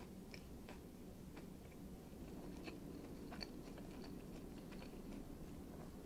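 Close-up chewing of a mouthful of miso katsu sandwich with the mouth closed: faint, irregular wet clicks and smacks, a few every second.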